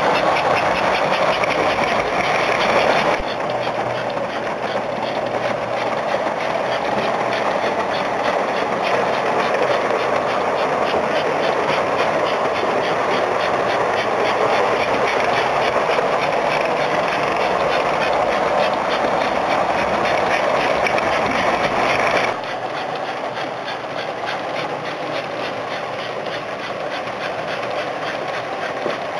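S gauge model steam locomotive, a custom PRR M-1 4-8-2 built on an American Flyer K-5 boiler, running with a freight train: a steady whir of its motor and gearing with the rattle of wheels on the track. The sound drops in loudness about three seconds in and again about twenty-two seconds in.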